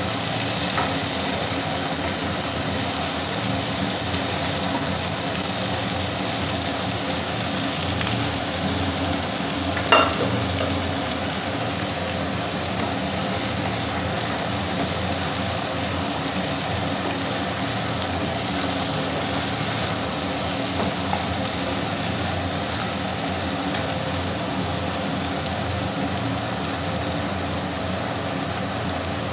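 Peanuts and chopped onion sizzling in oil in a nonstick kadai while being stirred with a spatula, with one sharp knock of the spatula on the pan about ten seconds in.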